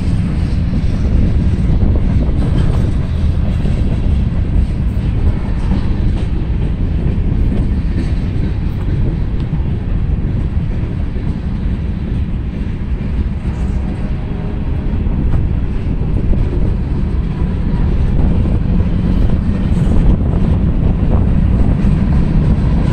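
Norfolk Southern freight cars rolling past, tank cars then covered hoppers, their steel wheels running over the rails in a steady rumble.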